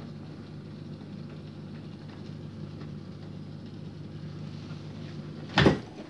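Dishwasher drain pump running non-stop with a steady low electric hum, the sign of the fault where the flood float switch keeps the pump on. Near the end comes a single loud knock.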